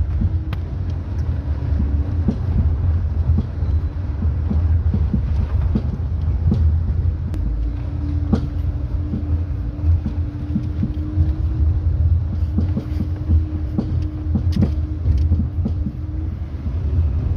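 Jeep Renegade's front suspension knocking over the road: rapid, irregular clunks over the steady rumble of the car driving. The knock comes from play in the shock absorber rod.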